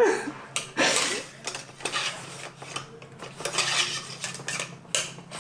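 Rifle cleaning rod being worked through the bore of a stainless-barrelled Tikka T3 Hunter rifle to run a cleaning patch, making irregular scraping and clinking of the rod against the metal.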